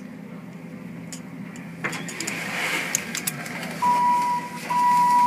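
ThyssenKrupp traction elevator car with a steady low hum. About two seconds in comes a clack and then a swell of rushing noise. Near the end there are two electronic beeps, a short one followed by a longer one.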